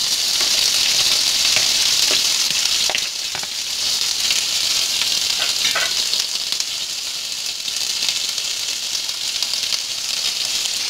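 Sliced onions sizzling steadily in hot oil in an enamel pot, with a metal spoon scraping and knocking against the pot now and then as they are stirred.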